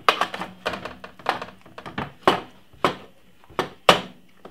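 Knife and fork knocking and clinking against a metal roasting tray while a piece of roast chicken is cut loose, about eight sharp knocks at uneven intervals.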